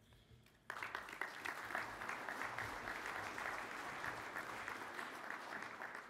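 Audience applauding, starting under a second in and holding steady.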